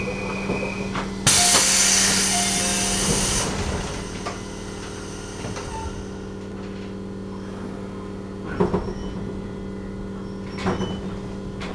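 Compressed air venting from a JR Central 211-series train in a sharp, loud hiss that starts suddenly and fades over about two seconds, just after the doors are closed. Under it runs a steady electrical hum from the car, and a few short knocks come later.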